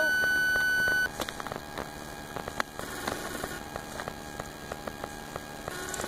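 A steady, high-pitched electronic beep that cuts off suddenly about a second in. After it, crackling and rustling of a plastic bag being handled, with honeybees from a swarm buzzing close to the microphone.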